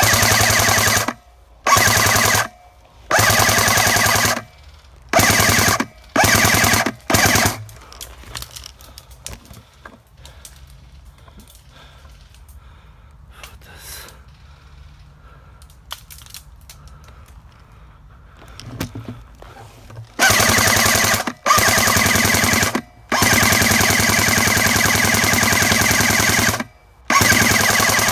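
Airsoft gun firing full-auto in bursts, a rapid rattle over a whirring whine. Six short bursts come in quick succession, then there is a lull of about twelve seconds, then four longer bursts, one lasting nearly four seconds.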